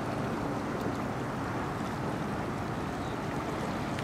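Steady wind noise buffeting the microphone, with river water washing against the stone shoreline.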